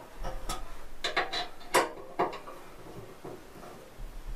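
A handful of sharp metallic clicks and clanks as the pannier mounting hardware is handled and adjusted, bunched in the first half, then quieter.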